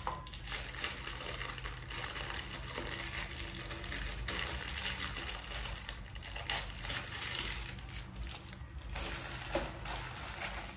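Plastic packaging crinkling and rustling as it is handled, with small clinks and knocks, over a faint low steady hum.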